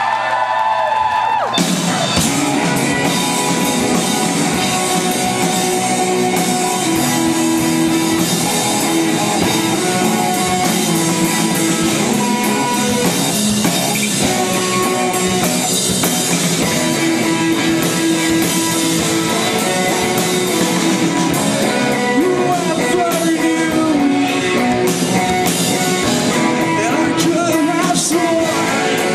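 Rock music with singing, electric guitar and drum kit. A lone guitar note bends for the first second or so, then the full band comes in.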